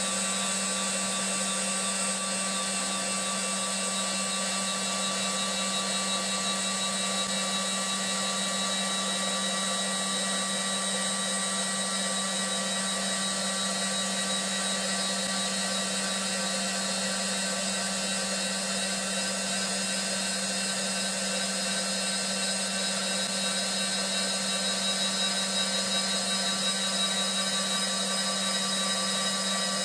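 CNC woodturning lathe running, its high-speed saw-blade tool (set to 18000 rpm) cutting along a thin wooden pool cue blank turning at 700 rpm. The sound is a steady machine whine of several held tones over an even hiss, without let-up.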